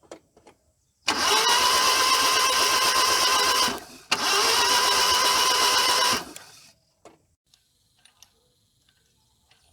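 Maruti 800 three-cylinder engine cranked on its electric starter with the spark plugs removed, in two bursts of about two and a half and two seconds: with no compression it spins freely at a steady whir and does not fire, blowing debris out of the plug holes.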